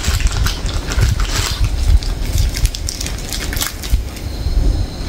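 Plastic chocolate wrappers crinkling and rustling as a handful of small wrapped chocolates and their packet are handled, in irregular crackles with low bumps of handling.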